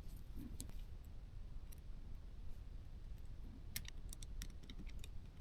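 Faint small clicks and taps of a small screwdriver and the plastic parts of a DJI Mini 3 drone being handled and fitted together: a few scattered clicks, then a quick run of them about four seconds in, over a low steady rumble.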